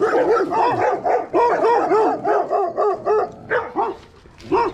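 Dogs barking in a rapid run of barks, several a second, easing briefly near the end.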